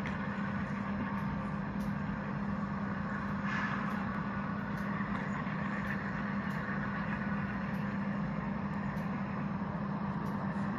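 Diesel locomotive engine running steadily at idle, a constant low hum over a rumble, with a brief hiss about three and a half seconds in.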